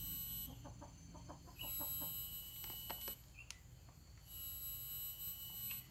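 Faint yard background: chickens clucking, a steady high whine made of several thin tones that cuts in and out three times, and a few soft clicks.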